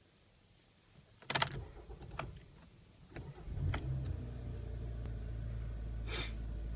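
Car ignition key turned with the keys clicking and jangling, then the engine cranks and catches about three and a half seconds in and settles into a steady idle. A short rustle rises over the idle near the end.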